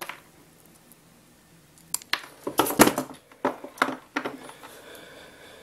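Wire cutters snipping and clicking as the ends are cut off an R/C ESC's leads, with handling of the tool and wires. The sharp clicks and snaps bunch together about two to four seconds in.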